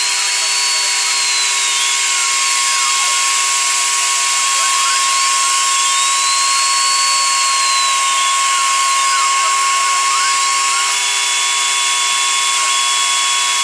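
Mini CNC router milling MDF with a 1 mm roughing end mill: a steady high spindle whine, with motor tones that slowly rise and fall in pitch in repeating arcs as the cutter traces a circle.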